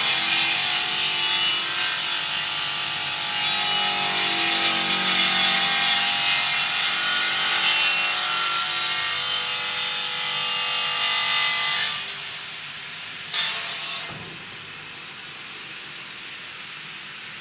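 Elumatec MGS 105 II mitre saw's circular blade cutting through an aluminium profile, a loud ringing noise with several steady tones. About twelve seconds in the sound drops off sharply, a brief loud burst follows a second and a half later, and a quieter steady noise remains.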